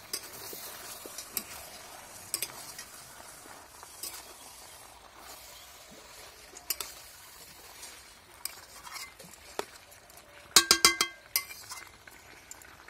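Metal spatula stirring and scraping marinated chicken in a stainless steel kadai, with a faint sizzle as the meat cooks without oil. Near the end a few ringing metal clinks of the spatula against the pan.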